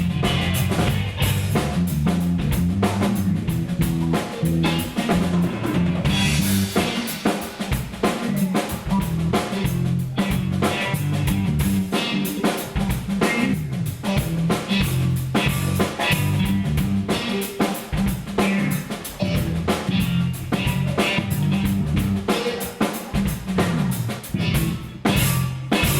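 Live band playing an instrumental passage without vocals: drum kit with snare and bass drum over a stepping bass line.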